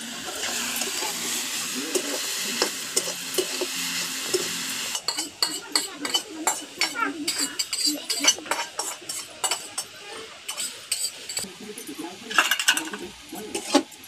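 Small shrimp sizzling as they fry in a metal kadhai, with a metal spatula stirring them. A steady sizzle fills the first five seconds, then changes suddenly to quick, irregular scrapes and clinks of the spatula against the pan.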